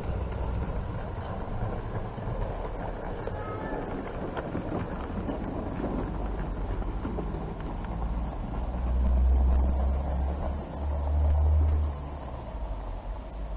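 Model garden-railway train running along outdoor track, a steady rolling rumble with fine clicking. Wind on the microphone adds a low rumble that swells in two strong gusts in the second half.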